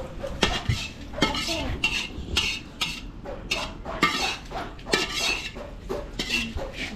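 A metal utensil scraping and clinking against a cooking pot as food is stirred: a quick, uneven series of knocks and scrapes.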